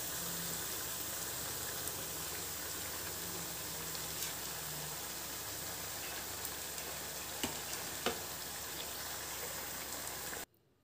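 Hot oil sizzling steadily as grated-potato balls deep-fry, with a couple of faint clicks. The sound cuts off suddenly near the end.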